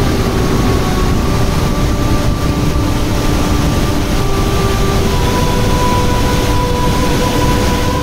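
Rain-swollen waterfall in full spate, two cascades pouring into a churning pool: a loud, steady rush of water. Faint steady musical tones sit beneath it.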